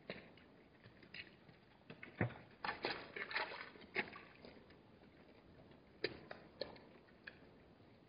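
Hartmann's mountain zebras at a waterhole: scattered hoof steps on gravel mixed with wet slurps and splashes as they drink. The sounds come in short, irregular clusters, busiest a couple of seconds in and again about six seconds in.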